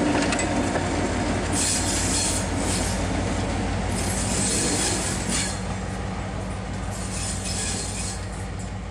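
Diesel locomotive A39, a CIÉ A class, passing close on broad-gauge track and drawing away: its engine gives a steady low hum that slowly fades. Several bursts of high, hissing wheel-on-rail noise come over it.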